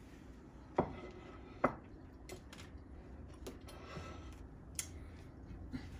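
Utensils knocking against dishware: two sharp knocks in the first two seconds, the second with a short ring, then a few fainter clicks.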